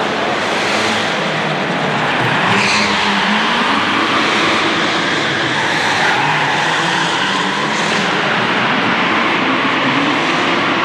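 Rally car engine revving hard, its pitch rising and falling as the car is driven through tight turns, with tyres squealing and skidding on the track.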